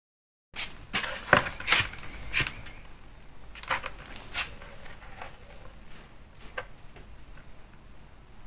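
A hand digging and scraping in dry wood ash at a hearth, with sharp clicks and scrapes. They begin about half a second in, come thickest and loudest over the next two seconds, then thin out to scattered fainter ones.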